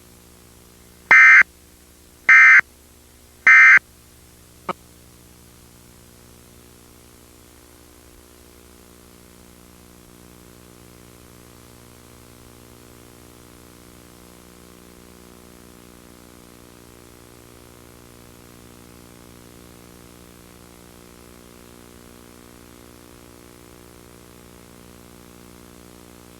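Emergency Alert System End of Message: three short bursts of SAME digital data tones about a second apart, followed by a click. After that a steady low electrical hum with faint hiss carries on.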